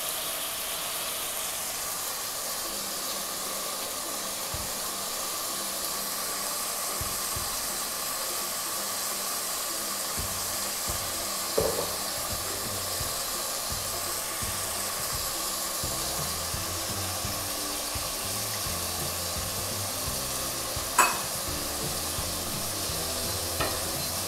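Country chicken pieces and spice masala sizzling steadily as they fry in an aluminium pressure-cooker pan on a gas stove. There is a short click about halfway and a sharp knock near the end.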